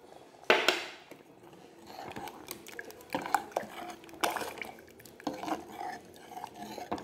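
A spoon stirring thick curry in a pressure cooker pot as curd is mixed in, knocking and scraping against the metal side. There is a louder clank about half a second in, then scattered knocks.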